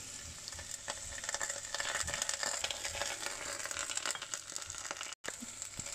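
Whole spices and garlic frying in hot olive oil in a pot: a steady sizzle with small crackles. The sound cuts out for a moment about five seconds in.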